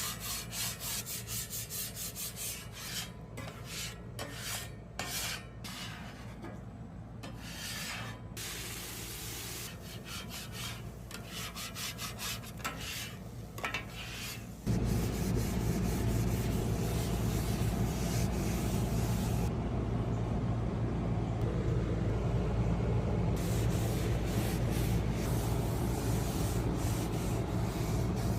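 Metal spatula scraping across a flat-top griddle in repeated rasping strokes. About halfway through, a louder steady rushing noise with a low hum starts abruptly and continues.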